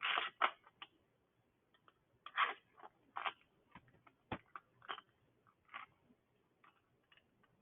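Irregular light clicks and knocks of small engine parts being handled as a carburetor is slid onto its mounting bolts during small-engine reassembly.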